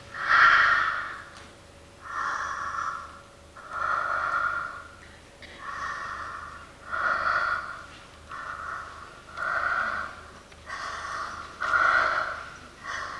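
A person breathing heavily and loudly, in and out in hard, breathy gasps, about one every second and a half.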